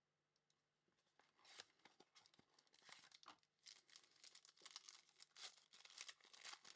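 Faint crinkling and tearing of trading-card pack wrapping as a pack is opened by hand. It starts about a second in as an uneven run of small crackles and rustles.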